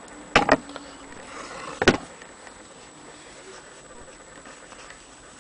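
Sharp handling knocks: a quick double click about half a second in and a single sharp click near two seconds, then only faint background noise.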